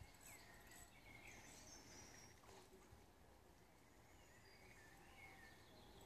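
Faint birdsong over a quiet background: scattered short chirps and whistles, some falling in pitch.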